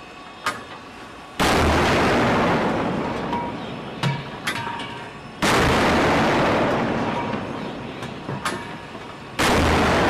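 Destroyer's forward naval deck gun firing three rounds about four seconds apart. Each shot is a sudden loud blast that dies away slowly over the next few seconds, with light clicks in between.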